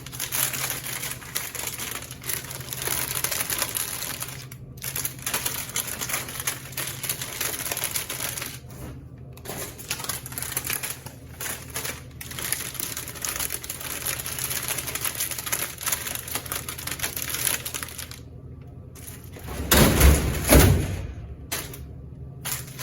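Rapid, continuous mechanical clicking and clattering over a steady low hum, stopping briefly a few times, with a loud low thump about twenty seconds in.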